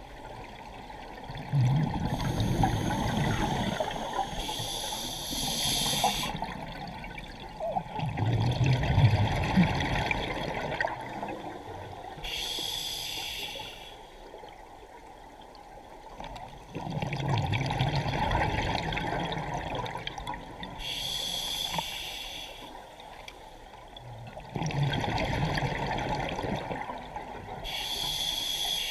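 Scuba diver breathing through a regulator underwater: a short hissing inhale followed a few seconds later by a longer burst of bubbling exhaled air, repeating about every eight seconds.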